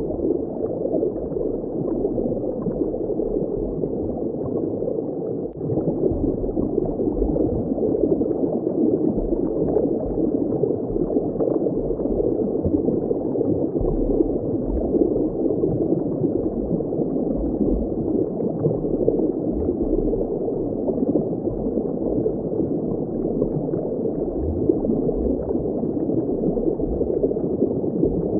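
Steady underwater water ambience: a dull, continuous bubbling wash with no high hiss, and irregular low rumbles underneath.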